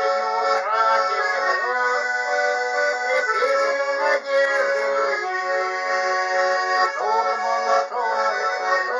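Accordion playing an instrumental passage of a Russian song: a melody over sustained chords, with no singing.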